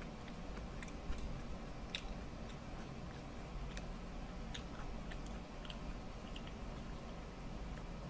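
Chewing food, with scattered small wet clicks and smacks from the mouth and fingers at the food, over a steady low hum.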